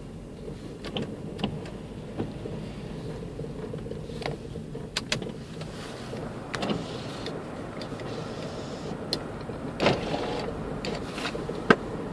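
Car driving over a rutted, snow-packed road, heard from inside the cabin: a steady drone of engine and tyres broken by sharp knocks and thumps as it jolts over the snow, with louder knocks about ten seconds in and near the end.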